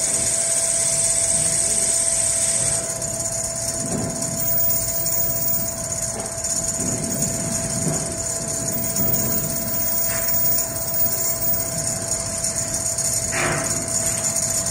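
Automatic large-format furniture sewing machine running as it stitches a headboard panel: a steady motor whine over the machine's running, with a brighter hiss in the first few seconds. One short knock comes near the end.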